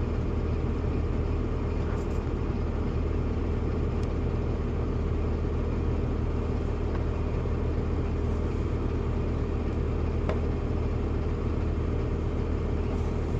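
An engine idling steadily with a deep, even hum, with a few faint light clicks over it.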